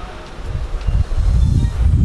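Wind buffeting the camera microphone, a gusting low rumble that grows stronger about a second in.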